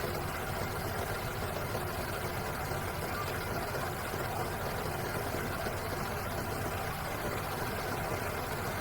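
Honda 110cc single-cylinder four-stroke motorbike engine idling steadily.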